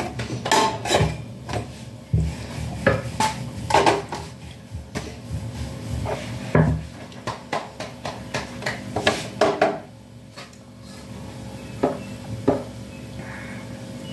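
Kitchen clatter: many short clinks and knocks of pots and utensils handled at a gas stove, with a brief lull about ten seconds in.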